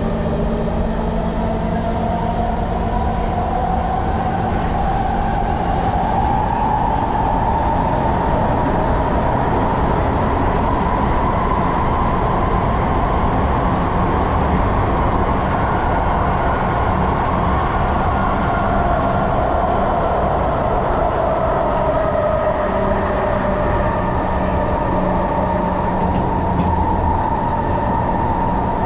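Singapore MRT train running, with a steady low rumble under an electric motor whine. The whine rises in pitch over the first ten seconds or so, holds, then slowly falls as the train picks up speed and then eases off.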